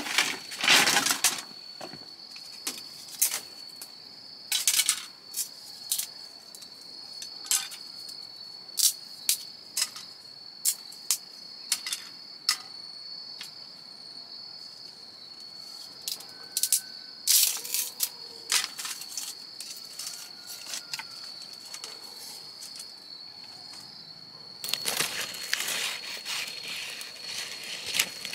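A steady, high-pitched insect drone runs throughout. On top of it come irregular sharp clicks and light knocks, louder than the drone, with a stretch of rustling noise near the end.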